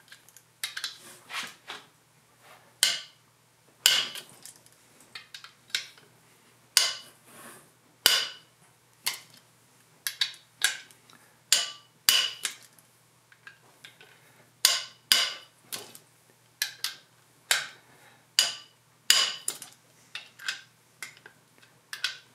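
Socket wrench clicking in short runs and metal clinking, in separate sharp ticks a second or so apart, as the main bearing cap bolts are worked loose on a three-cylinder diesel engine block.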